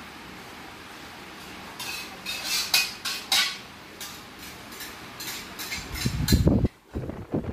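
A metal spoon scrapes and clinks against a steel wok on a gas burner as it is stirred, several quick strokes starting about two seconds in. Near the end comes a louder low rumble and thump.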